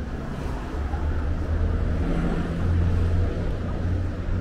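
A motor vehicle's engine running close by, a low steady hum that swells about two seconds in and eases off toward the end.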